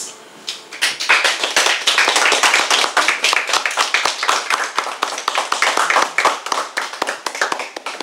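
Several people clapping in applause, a dense, even patter of hand claps that starts about half a second in and keeps on.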